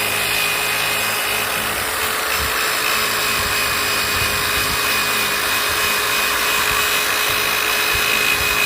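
Electric drill fitted with a wire-brush attachment running at a steady speed, its motor giving a steady whine while the brush scours rust off a rusted delta anchor with a scratchy hiss.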